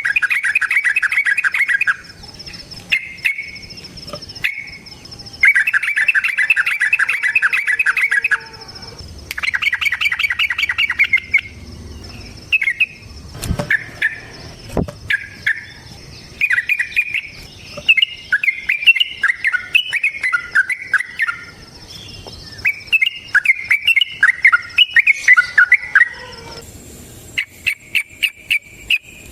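Yellow-vented bulbul singing: long, rapid trills of repeated notes lasting two to three seconds each, then runs of quick phrases that fall in pitch. A steady high insect drone sounds behind the song.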